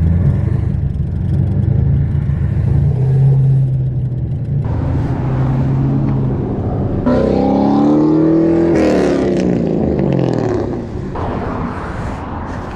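Car driving with steady engine and road noise. About seven seconds in, a pitched engine sound falls over about three seconds as the car loses speed.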